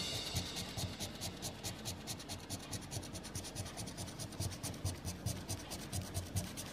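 A coin scraping the coating off a paper scratch-off lottery ticket in quick, short, repeated strokes.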